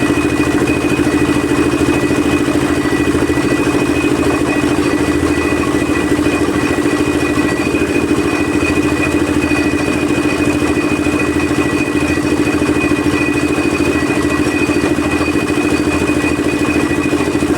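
Small engine of a concrete mixer running steadily at an even speed, with a fast, regular beat that does not change.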